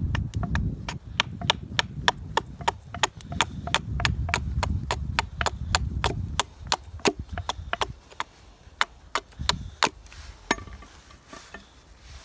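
Wood being chopped with a hatchet or knife: a run of sharp, quick strikes, about three a second, that stops about ten seconds in, over a low rumble that dies away about eight seconds in.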